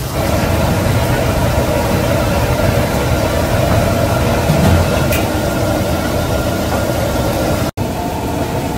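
Ground pork frying in a wok over a gas wok burner: a steady loud rush of sizzling and burner roar with a low rumble. It cuts out for an instant near the end.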